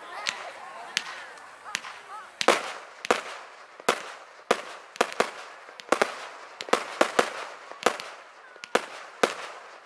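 Aerial fireworks bursting one after another: a string of sharp bangs, about one a second at first and coming closer together from a couple of seconds in.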